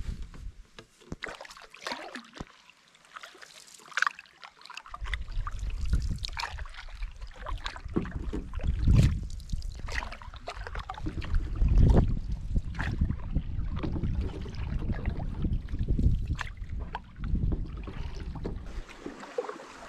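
Paddle strokes in a wooden canoe: water splashing and dripping off the blade. Wind buffets the microphone with a low rumble from about five seconds in until near the end.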